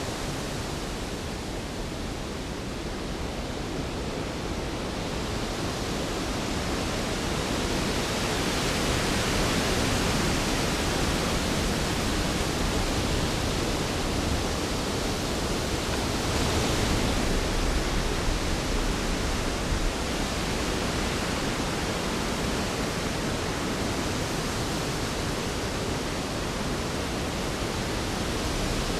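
Storm sound effect: a steady, dense rush of rain and wind, swelling about a third of the way in and easing a little near the end.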